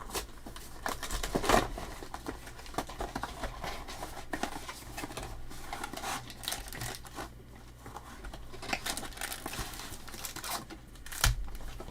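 Plastic packaging on trading-card boxes and packs crinkling and tearing as it is opened by hand, with scattered small rustles and clicks. One low thump near the end.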